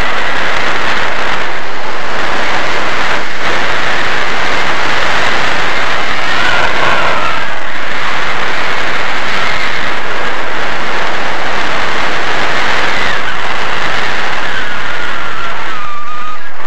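Loud, steady wind noise buffeting a helmet-mounted camera's microphone during a parachute descent. A faint wavering whistle comes through now and then.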